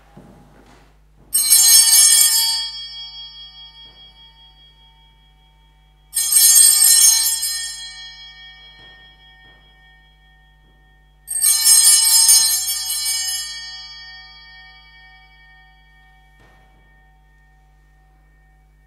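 Altar bells rung three times, about five seconds apart, each ring starting suddenly and dying away over several seconds: the bell signal accompanying the Eucharistic blessing with the monstrance.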